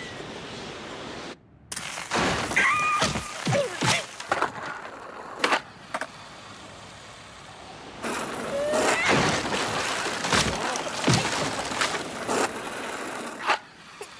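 Cartoon slapstick sound effects: a run of cracks, thuds and crashes in two clusters, with a few short squeaky cartoon-character cries among them.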